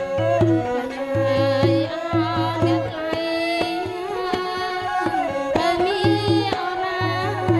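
Background music: a voice singing a wavering melody over drums and stringed instruments.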